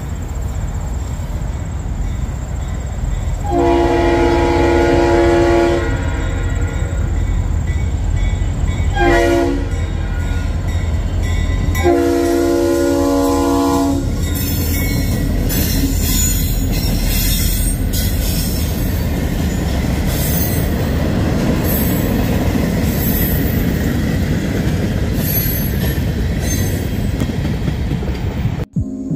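A Norfolk Southern diesel freight locomotive's air horn blows three times, long, short, long, with several tones at once, over the steady low rumble of the locomotive. After the last blast the train's wheels clatter and click over the rails.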